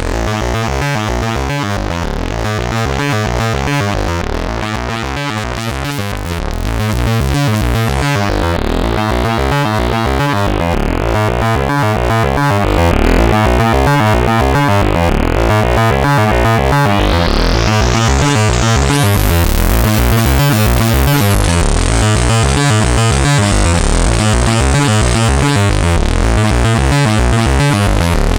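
Eurorack synthesizer: a Morphing Terrarium E350 oscillator playing a repeating sequence of notes through an analog-style filter whose cutoff is modulated by an LFO and frequency-modulated by a sine wave. The tone turns darker about a third of the way in, then the filter opens up and the sound grows much brighter in the second half.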